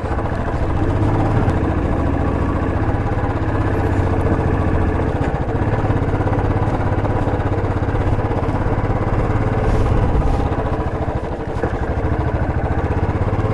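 Motorcycle engine running steadily at low riding speed, easing off briefly near the end.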